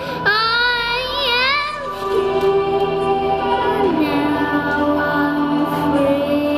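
A child singing wordless notes into a microphone, with music under it. The first note wavers in pitch, then longer held tones follow, one sliding lower about four seconds in.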